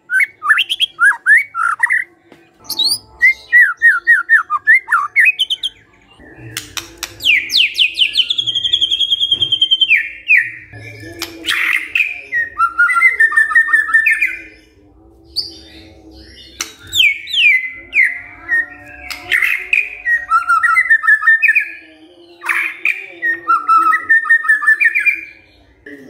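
White-rumped shama singing loudly: phrases of rapid, sweeping whistled notes and quick repeated note series, broken by sharp clicks and brief pauses.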